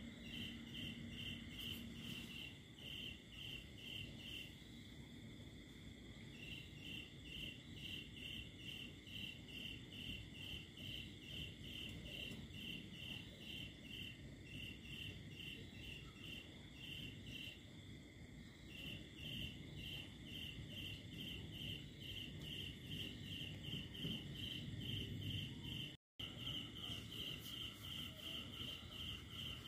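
Crickets chirping in a steady run of short chirps, about three a second, over a steady high hum and a low background rumble. The chirping pauses briefly twice, and all the sound cuts out for an instant near the end.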